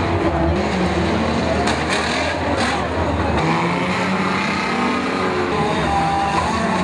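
Several banger-racing cars' engines running and revving together on the track, the pitch rising and falling. A few sharp bangs come about two seconds in.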